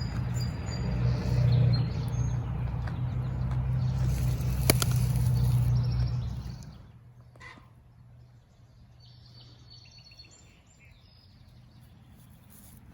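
Small birds chirping over a steady low motor hum; the hum fades out about halfway through, leaving the chirps over quiet farmyard background.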